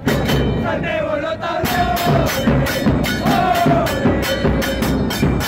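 Street brass band playing: horns hold long notes over a fast, steady beat of drums and cymbals.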